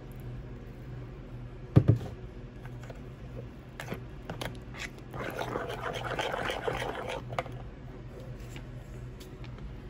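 Metal spoon stirring mashed banana batter in a bowl, with a heavy double knock about two seconds in, scattered clicks, and a stretch of wet scraping against the bowl from about five to seven seconds. A steady low hum runs underneath.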